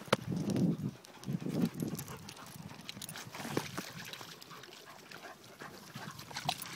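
A dog making two short, low vocal noises in the first two seconds, followed by scattered light ticks of steps on a wet, muddy path.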